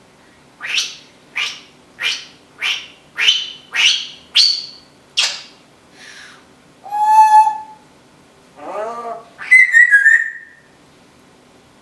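Timneh African grey parrot whistling: a run of eight short, rising whistles about two a second, each climbing quickly in pitch. After a short pause come three louder, longer calls, the last with a clear high tone.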